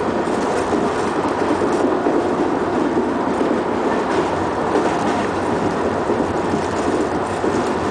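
Steady running noise of a moving passenger train heard from inside the carriage, a continuous low rumble of wheels on rails.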